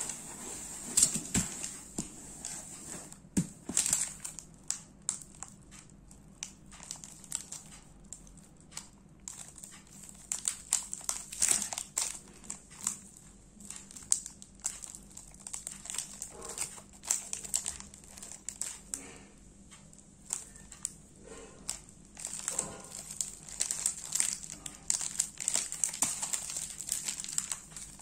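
Plastic snack-wrapper of a packet of crispy wafers crinkling and crackling irregularly as it is slid, picked up and turned over in the hands.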